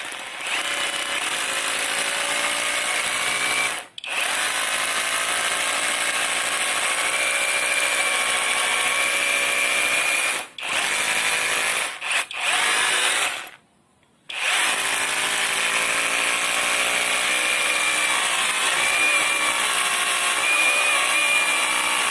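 OSUKA OSRH-26 cordless brushless SDS rotary hammer drilling a 6 mm hole into an old, very hard concrete floor in hammer-drill mode, spinning and hammering at once; the bit goes in easily. It runs in long steady stretches with brief stops about four, ten and twelve seconds in, and a slightly longer pause near fourteen seconds.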